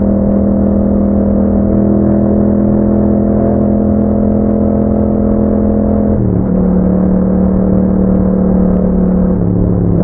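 Yamaha MT-07's parallel-twin engine running through an Akrapovic exhaust at a steady speed. About six seconds in the engine note dips briefly and then settles into a steady note again.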